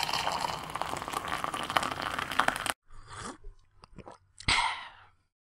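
Intro sound effects: a dense crackling, crunching noise that cuts off abruptly after about two and a half seconds, followed by a few scattered clicks and a sharp click with a swish about four and a half seconds in.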